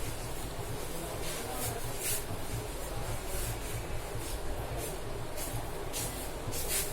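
Light scraping and scattered small ticks over a steady low background hum.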